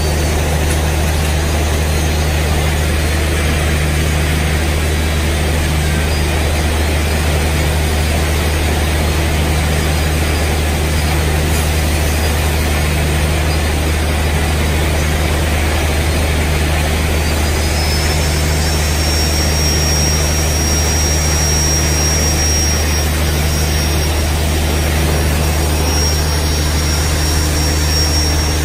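Handheld electric grinder sharpening the carbide buttons of a borewell button drill bit: a steady motor drone with grinding hiss. Past the middle, a high whine rises and then holds.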